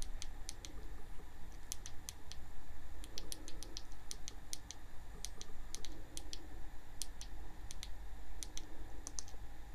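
Irregular bunches of short, sharp button clicks as the camera's on-screen menu controls are pressed to step through exposure settings, over a low steady hum.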